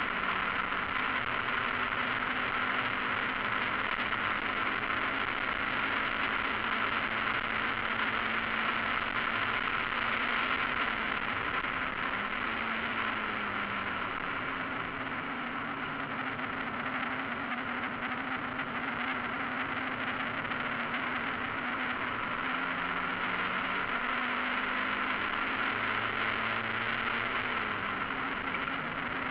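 Mazda MX-5 race car at speed, heard from inside the cockpit. The engine note rises and falls through the corners beneath a steady, loud rush of wind and road noise.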